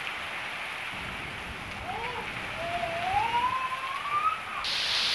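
Heavy rain falling steadily, as a dense hiss that suddenly turns brighter near the end. Over it, from about two seconds in, a long wavering call rising in pitch.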